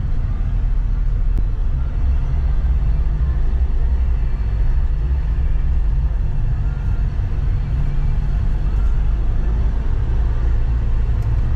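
Troller 4x4 on the move, with a steady low rumble of engine and road noise.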